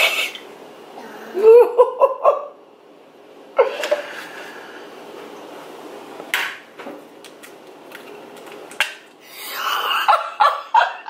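A person laughing in short choppy bursts, once about one and a half seconds in and again near the end, with a couple of sharp taps in between.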